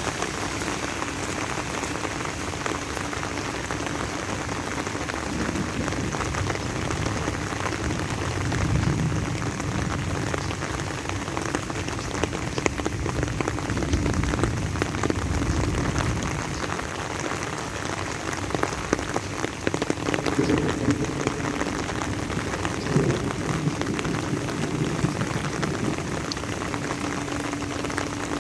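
Steady rain falling, thick with small drop ticks. A low rumble swells in and fades a few times in the middle.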